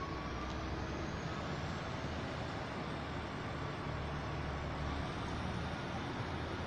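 Diesel multiple unit running as it draws slowly into the station platform: a steady low engine drone with a faint rising whine.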